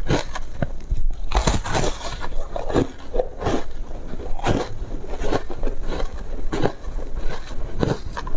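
Close-miked biting and chewing of crunchy foam ice coated in matcha powder: a run of irregular crisp crunches, with a longer, louder crunch about a second in.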